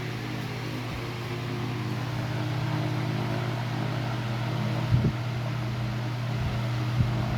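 Arge 60 cm 200 W oscillating wall fan running: a steady motor hum under the rush of moving air, growing slightly louder over the first few seconds. A short knock about five seconds in and another near the end.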